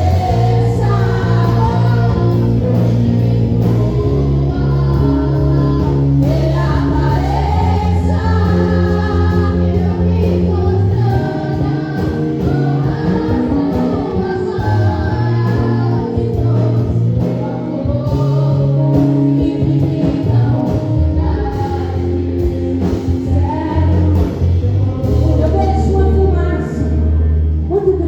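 Gospel worship song: voices singing over a band, with sustained bass notes that change every couple of seconds.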